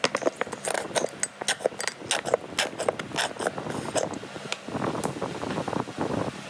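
Mayonnaise being scraped out of a jar onto shredded cabbage in a glass bowl: a quick run of sharp clicks and scrapes for about four seconds, then quieter.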